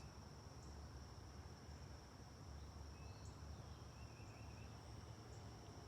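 Near silence: room tone with a faint steady high-pitched whine and a low hum.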